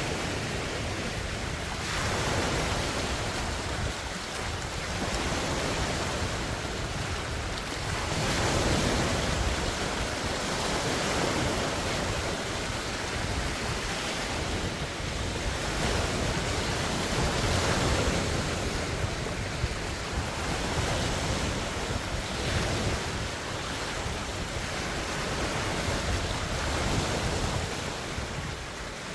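Large wind-driven lake waves washing and splashing, swelling and easing every few seconds, with a strong wind rumbling on the microphone.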